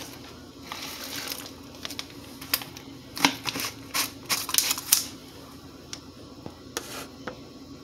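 Scattered light clicks and knocks of plastic containers being handled on a kitchen counter, several in quick succession about four seconds in. A faint steady hum runs underneath.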